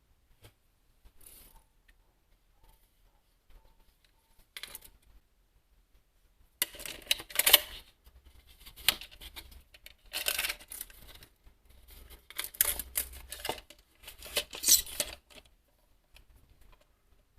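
Intermittent handling noises: a few faint clicks, then from about six and a half seconds in, several bursts of rustling, scraping and clicking as materials are worked by hand.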